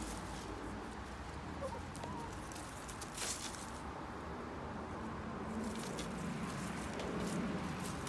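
Domestic hens scratching and pecking through dry leaf litter, with short rustles now and then, and low soft clucking toward the end.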